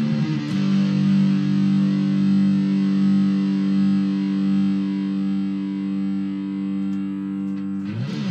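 Electric guitar (an Aria Pro Blitz Les Paul-style) through a Twinote Boogie Distortion pedal and a Marshall mini amp: one distorted chord struck and left to sustain for about eight seconds, its brightness slowly fading. New chords start near the end.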